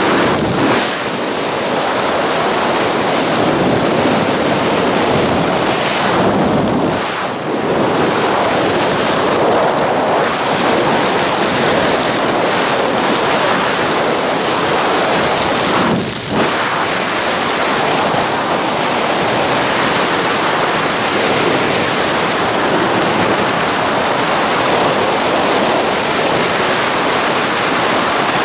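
Steady rushing wind buffeting the camera microphone while flying under an open parachute canopy, dipping briefly twice.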